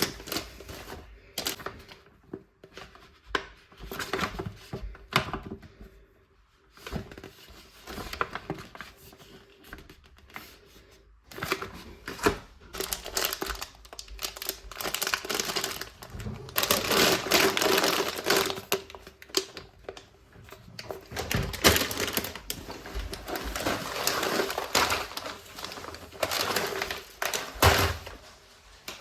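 Household handling sounds: a run of clicks and knocks with rustling and crinkling, as of things and packaging being handled, busiest in the second half.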